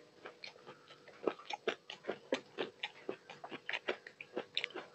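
Close-miked eating sounds: rice being mixed by hand on a steel plate, with mouth sounds of chewing, giving an irregular run of short, wet clicks and smacks, several a second.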